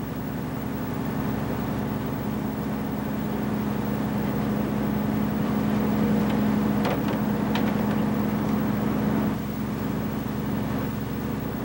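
A fishing boat's engine running steadily with a low hum. A couple of short clicks come just past the middle.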